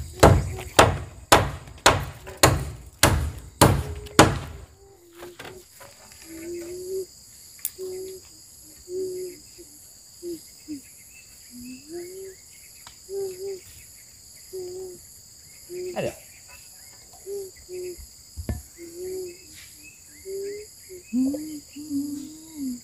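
Hammer blows on wood, about eight strikes at roughly two a second, as the framing of a wooden shed is nailed up. Insects drone steadily throughout, and after the hammering stops a run of short, pitched calls follows.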